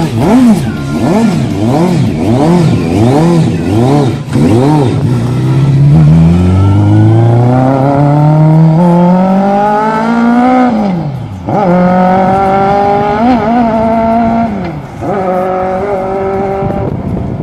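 Kawasaki ZZR1100 inline-four motorcycle engine swapped into a LADA 2101, revved in quick blips several times. It then pulls away hard with a long rising wail, drops sharply at an upshift about ten seconds in, and goes through further shifts as it moves off.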